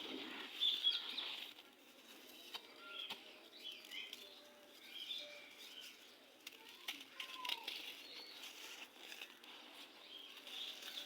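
Gritty red sand crumbling: irregular soft crunching and rustling, with a few sharp clicks.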